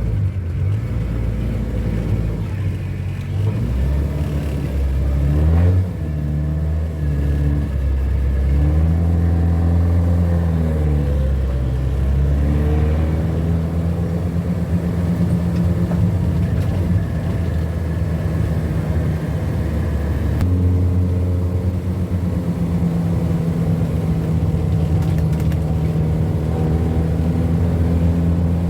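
Ford Corcel's 1.4 four-cylinder engine running, its revs rising and falling several times in the first half, then holding steady.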